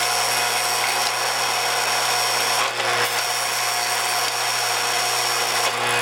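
Lionel model-train sawmill accessory running: a steady electric buzz and rattle as its mechanism shoves cut boards of lumber out onto the platform.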